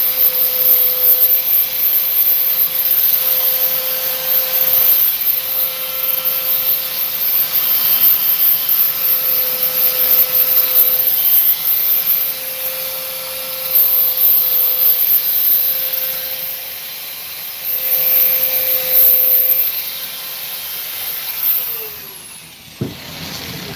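Bauer electric power tool sanding down a fiberglass door repair: a steady motor whine under a coarse abrasive rasp that swells and eases as the disc is pressed on and lifted. About 22 seconds in it is switched off and spins down, its pitch falling.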